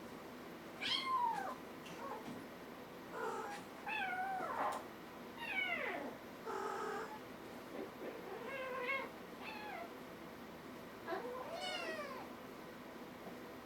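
Kittens meowing, about seven or eight separate calls spread over the stretch, several of them sliding down in pitch.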